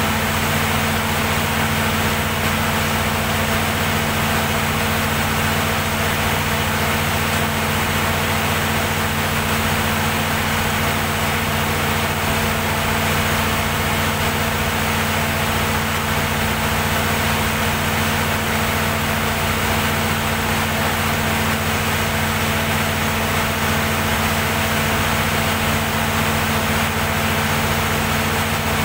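Perkins diesel generator set running steadily at constant speed, an even low engine hum with no change in pitch.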